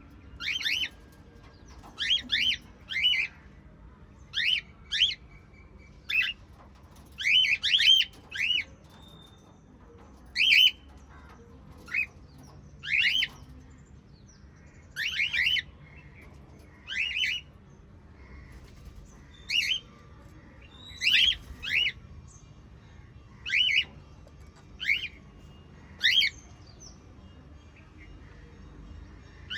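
Cockatiel calling with short, loud chirps, singly or in quick runs of two or three, about every one to two seconds.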